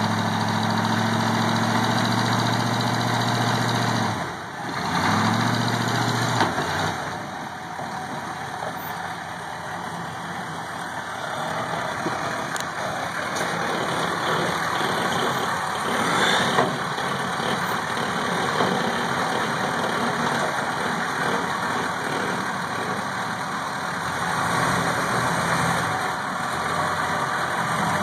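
The diesel V8 of an ex-military Chevrolet M1008 pickup idles steadily at first, then runs more roughly as the truck crawls over a tree stump. There is a single sharp knock a little past halfway.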